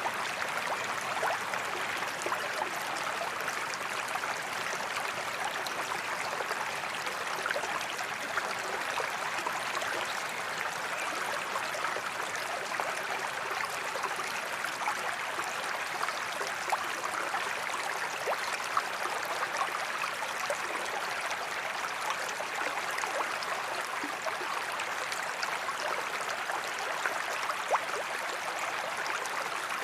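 Small forest creek flowing steadily over stones: a continuous babbling rush with fine splashes and gurgles throughout.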